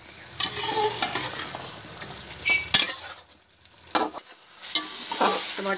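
Metal spoon stirring beef pieces and tomatoes frying in ghee in a metal pot: a steady sizzle with scraping and a few sharp clinks against the pot, easing off briefly about three seconds in.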